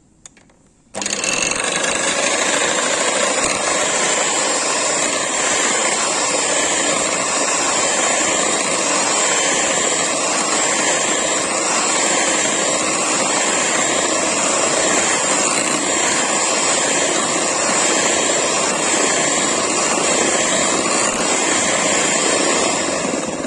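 Electric hand mixer switching on about a second in and running steadily on its lowest speed, its twin wire beaters whisking chilled whipping cream in a bowl.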